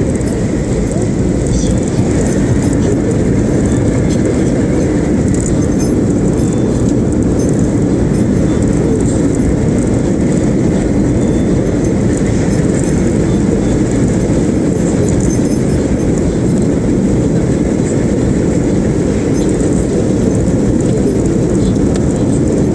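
Steady low rumble of tyre and engine noise inside the cabin of a moving car, picked up by a smartphone.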